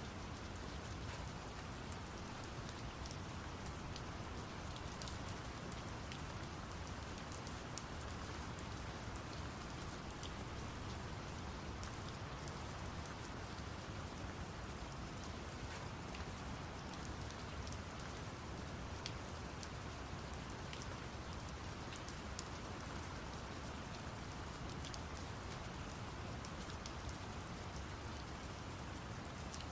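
Steady rain falling, with fine drop patter, over a constant low rumbling brown noise.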